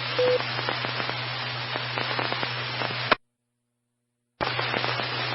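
Two-way radio static: a steady hiss over a low hum on an amateur radio net between transmissions, with a brief short tone just after the start. About three seconds in it cuts off to dead silence for just over a second, then the hiss comes back as the next station keys up.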